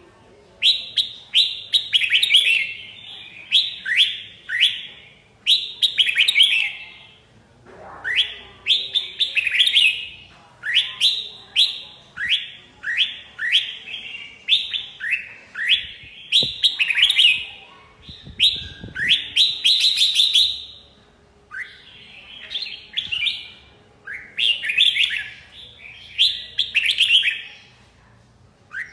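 Red-whiskered bulbul singing: short, bright phrases of quick rising whistled notes, repeated every second or two with brief pauses between them.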